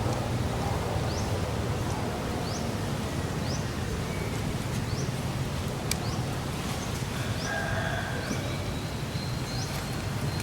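A bird repeating short, high, rising chirps about once or twice a second, over steady low outdoor background noise.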